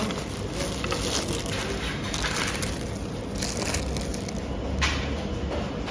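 Paper wrapper of a McDonald's burger crinkling as it is unfolded by hand, with several sharper crackles.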